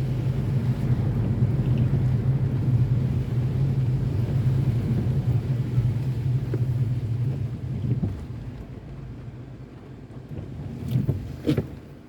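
Steady low drone of a car driving, which fades about eight seconds in, as when the car slows. A few brief sharp knocks come near the end.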